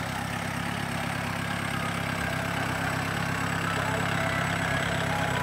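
Modified off-road jeep's engine running steadily at low revs as it crawls through mud, slowly growing louder as it comes closer.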